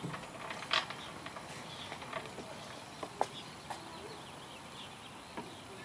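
Scattered clicks and knocks of gear being handled on a sailboat's deck, the sharpest about three seconds in, over faint bird chirps.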